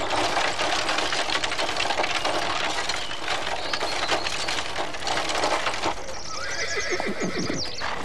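Busy clattering and rattling, then a horse whinnying near the end.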